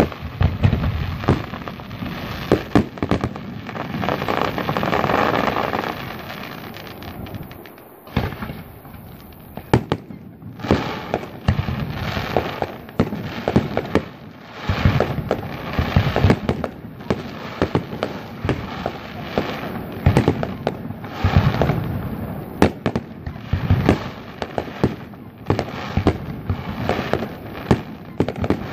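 Fireworks display: aerial shells bursting in rapid bangs with crackling between them. The bangs thin out to a short lull about eight seconds in, then come thick and fast again.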